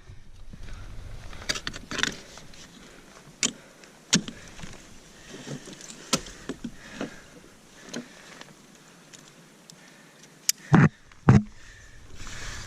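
Ice tools and crampons striking frozen waterfall ice, heard as scattered sharp taps and knocks with metal climbing hardware clinking. Two heavy thuds land about half a second apart near the end.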